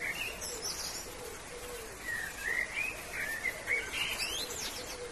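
Wild songbirds chirping and warbling in short, pitch-bending phrases: a brief call at the start, then a longer run of song through the middle, with a few higher notes, over a soft outdoor hiss.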